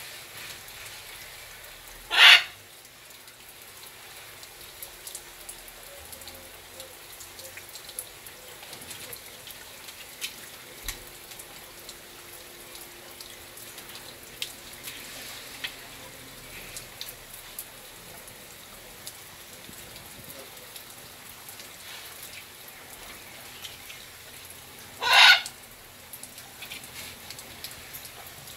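Water from a hose shower spattering steadily on an aviary and its macaws, with scattered droplet ticks. Twice, about two seconds in and again near the end, a green-winged macaw gives a single short, loud, harsh squawk.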